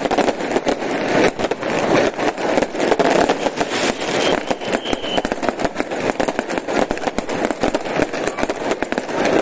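Fireworks barrage: small aerial shells bursting one after another, with a continuous dense crackle of many sharp pops a second.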